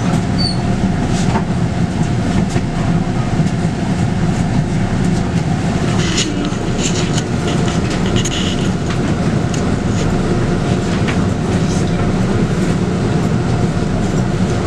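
Scania K280UB bus heard from inside while under way: its 9.3-litre five-cylinder Scania DC9 diesel runs steadily under the road rumble. Body panels rattle and click, most of all about six to nine seconds in.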